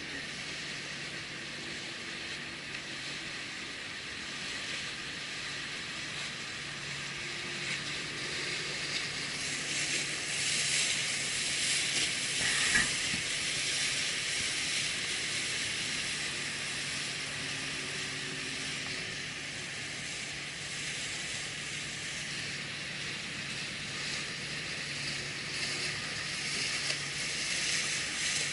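Steady hiss of choppy canal water and wind, under a faint low hum of motorboat engines passing through the canal; it swells for a few seconds as a speedboat goes by.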